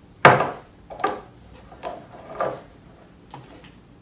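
Mike and Ike candies dropped one at a time into a small glass jar: about six sharp clinks at uneven intervals, the first the loudest.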